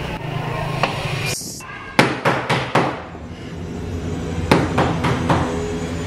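Knocking on a wooden door with a fist: four quick knocks about two seconds in, then three more about two seconds later.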